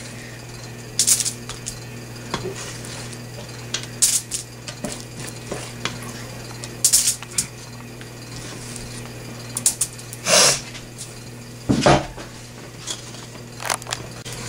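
Metal spoon scraping and clinking against a metal pot while thick no-bake cookie mixture is scooped out and dropped, in scattered short strokes every second or few, with one longer scrape about ten seconds in.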